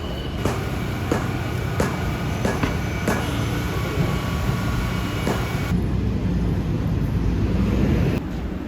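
Steady low rumble of a moving vehicle heard from inside, with sharp clacks and rattles through the first half. The higher hiss drops away about six seconds in.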